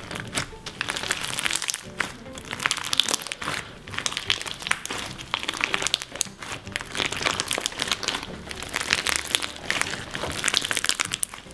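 Clear slime packed with cut plastic straw pieces being squished and kneaded by hand, giving dense, irregular crunching and crackling, with music underneath.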